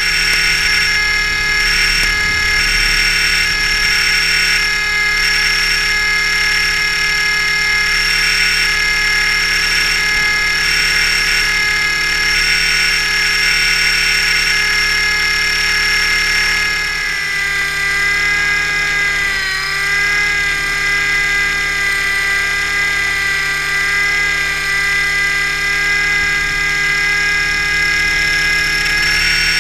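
Thunder Tiger Mini Titan electric RC helicopter in flight, heard from a camera on board: its electric motor and gears whine steadily over the rotor noise. About two-thirds of the way through, the whine dips briefly in pitch and then settles back.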